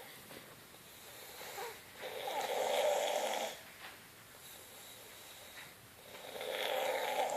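Snoring: two long snores about four seconds apart, one a couple of seconds in and the other near the end, with quieter breathing between.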